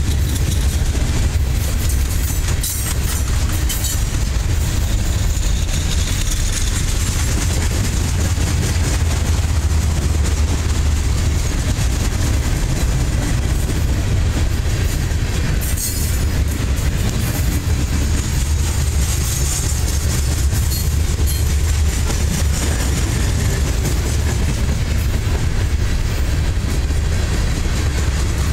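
Freight cars of a Herzog ballast rock train rolling past close by: a steady low rumble of steel wheels on rail, with occasional sharp clacks.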